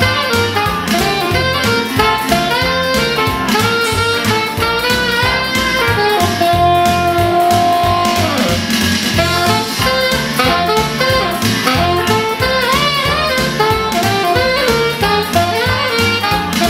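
Saxophone playing a quick, ornamented jazz melody over a backing accompaniment with a steady bass line; about halfway through it holds one long note that then falls away before the quick runs resume.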